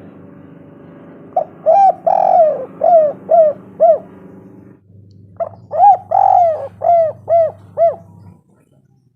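Spotted dove (tekukur) cooing in two phrases. Each is a short coo, a longer rolling coo, then four quick clipped coos. A low steady hum sits underneath.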